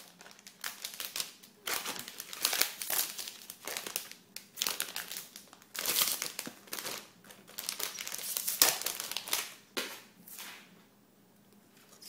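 Packaging wrap crinkling and rustling in irregular bursts as a new keyboard is taken out of it, stopping near the end.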